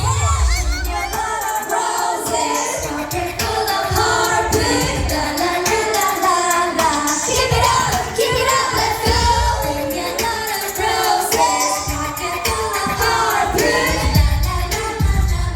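Female vocalists singing a K-pop dance-pop song over a backing track with a pulsing bass beat, heard through a hall's PA.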